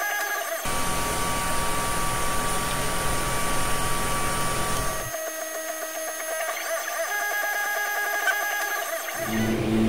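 FDM 3D printer printing, its stepper motors whining in shifting tones as the print head moves. From under a second in until about five seconds, a steady rush with one held tone takes over, from the printer's running fans.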